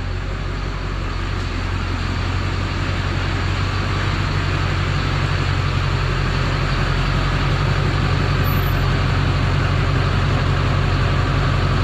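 GMC Sierra pickup's engine running steadily at idle.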